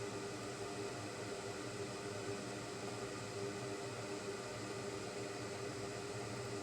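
Steady whir and hiss of a small electric fan motor, with a constant low hum and no changes.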